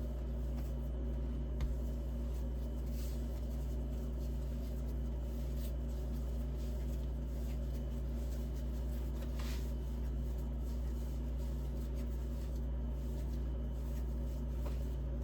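A steady low electrical hum with faint rubbing and soft ticks of hands lightly kneading bread dough on a floured board.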